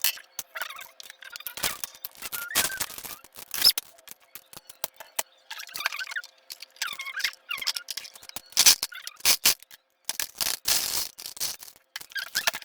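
Scissors snipping, with irregular clicks and rustles of small items and packaging being handled.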